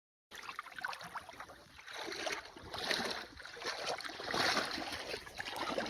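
Water lapping and sloshing against the side of a small fishing boat, swelling twice, with small knocks and clicks of handling.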